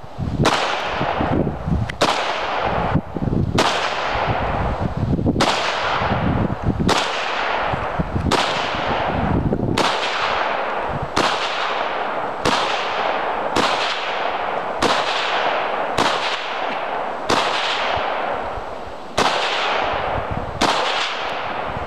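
Norinco MAC-90, a semi-automatic AK-47 type rifle in 7.62x39, firing a long string of single shots, roughly one a second, from a 75-round drum. Each shot has a long echoing tail.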